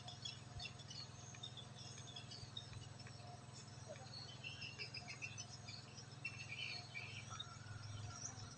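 Faint, scattered chirping of small birds over a steady low hum.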